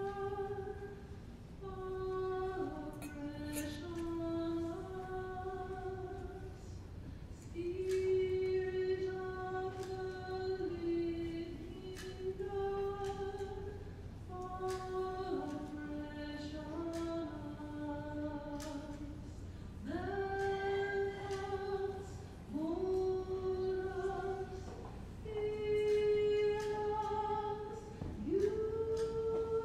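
A woman's voice singing a slow hymn in long held notes that step up and down in pitch.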